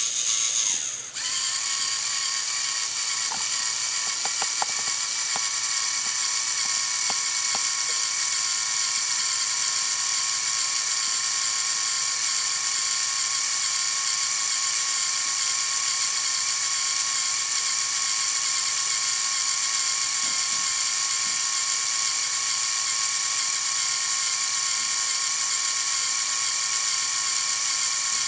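LEGO Mindstorms NXT servo motors and their plastic gear trains whirring with a high, steady gear whine as the robot climbs a stair step. The whine cuts out briefly about a second in, then runs on without a break.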